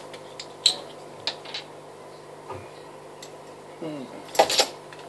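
Light clinks and taps of a glass beer bottle being handled, then drinking from it about four seconds in, with a short falling gulp and a louder cluster of clicks of glass at the mouth.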